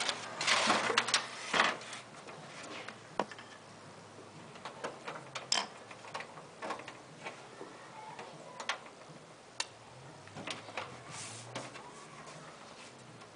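Hands working inside a desktop computer case: a burst of scraping and rustling in the first two seconds, then scattered clicks and knocks of plastic and metal parts being handled.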